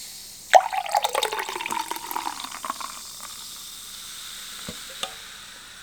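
Sparkling mango juice poured from a can into a glass: the pour starts suddenly about half a second in and splashes for a couple of seconds, then settles into a faint fizz, with two small clicks near the end.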